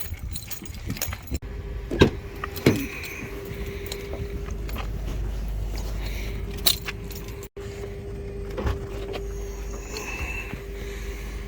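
Car engine idling with a steady low rumble and hum, with two sharp clunks and some rattling about two seconds in.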